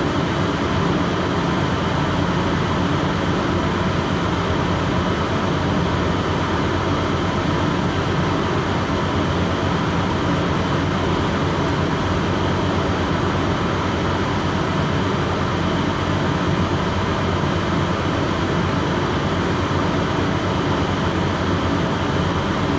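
Boat's engine running with a steady, unbroken drone.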